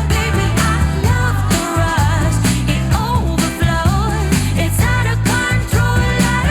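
Pop music with a strong, steady bass and a bending lead melody, played back through Audio-Technica ATH-M50xBT headphones used wired and recorded to reproduce what the listener hears.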